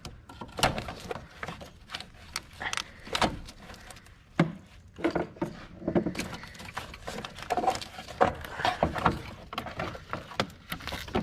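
Hand tools working on an alternator mounting bolt: a string of irregular metallic clicks and knocks as a wrench is fitted and turned and metal parts bump.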